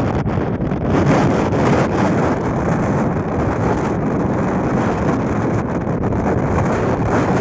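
Wind blowing hard across the microphone over the open sea, a loud, steady, deep rushing noise.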